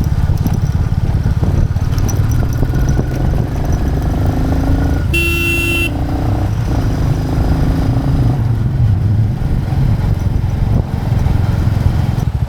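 Royal Enfield Classic 350's single-cylinder engine running steadily under way. A vehicle horn honks once, for under a second, about five seconds in.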